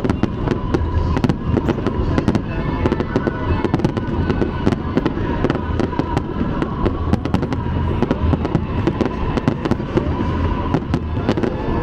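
Fireworks display: a dense run of sharp cracks and bangs from bursting shells, one after another, over a continuous low rumble.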